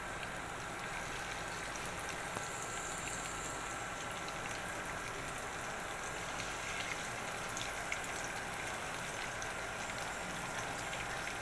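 Masala-coated fish pieces deep-frying in hot oil: a steady sizzle with small crackles and pops.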